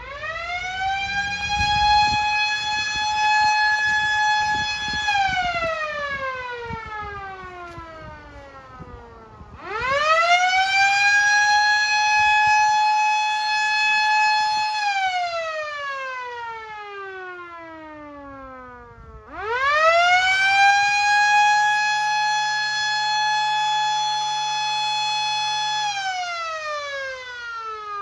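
Outdoor fire siren sounding three long wails. Each one rises quickly to a steady high pitch, holds it for about four to five seconds, then slides slowly down before the next begins.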